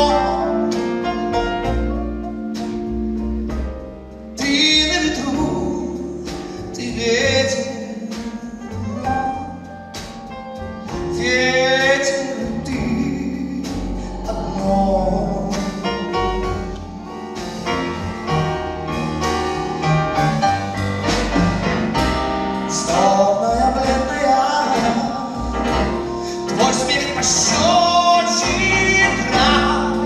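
Live song performance: a male vocalist singing in Russian, backed by a band of piano, drums, keyboards and saxophone.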